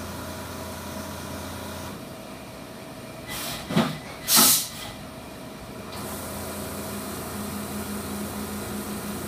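Brother 5-axis CNC machining centre running with spindle and coolant, going quieter about two seconds in as the spindle pulls up for a tool change. Two short bursts of hiss follow, the second the loudest. The machine's steady hum with a low tone comes back about six seconds in as the spindle and through-spindle coolant start again.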